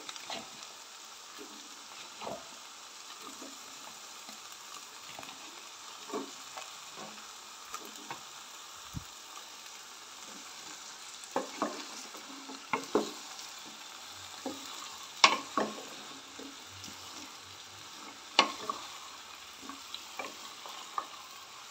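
Potato chunks and radish pods sizzling gently in oil in a steel pot while being stirred with a wooden spoon. The spoon knocks and scrapes against the pot now and then, most sharply in the second half.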